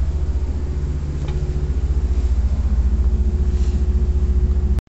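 Passenger train running along the track, heard from aboard as a steady low rumble with a faint steady hum above it.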